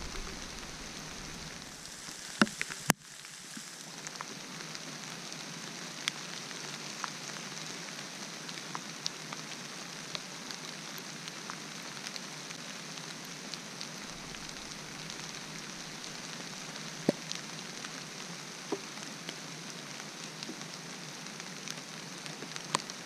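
Steady hiss of heavy rain, with scattered light ticks of drops landing close by. Two sharp clicks about two and a half seconds in.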